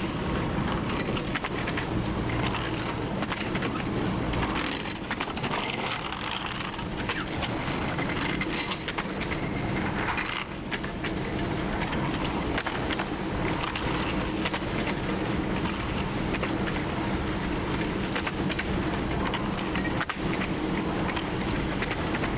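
TU7 narrow-gauge diesel locomotive's V12 diesel engine running steadily as the locomotive travels, with scattered short knocks over the running noise.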